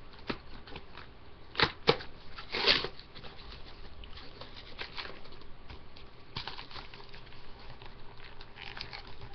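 A cardboard trading-card box and the card packs inside being handled: two sharp knocks about a second and a half in, a short rustling scrape just under three seconds in, then light tapping and rustling.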